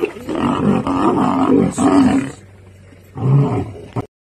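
A lioness snarling and roaring at a male lion in a short squabble: one long loud bout of about two and a half seconds, then a shorter one a little after three seconds in, cut off abruptly near the end.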